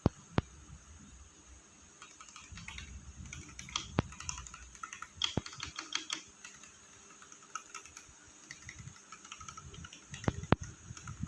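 Typing on a Royal Kludge RK R87 mechanical keyboard: a quick run of key clacks that picks up about two seconds in, with a few louder single key strokes standing out.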